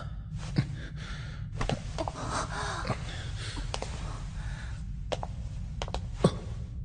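A person's soft breaths and gasps over a steady low rumble, with a few sharp clicks.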